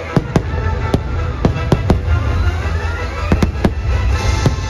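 Aerial fireworks shells bursting with about ten sharp bangs, several in quick succession, over a deep rumble, with a hissing crackle near the end.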